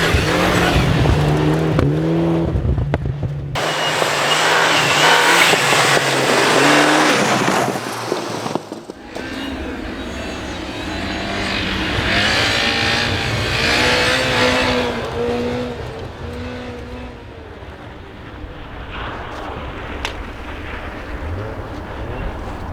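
Rally car engines revving through gear changes, the pitch climbing and dropping again and again. The sound changes abruptly twice, about three and a half and nine seconds in.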